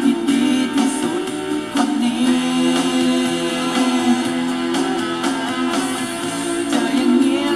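A song with singing and guitar played back through the speakers of an Aiwa CDS-A190 portable CD, radio and cassette player.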